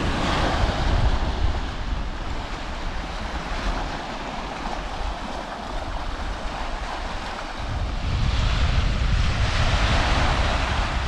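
Waves washing onto a beach, the surf hiss swelling near the start and again from about eight seconds in, with wind buffeting the microphone.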